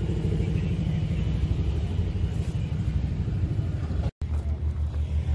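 Small engine running steadily with a low rumble. About four seconds in the sound cuts out briefly and is followed by an engine with a more evenly pulsing low beat.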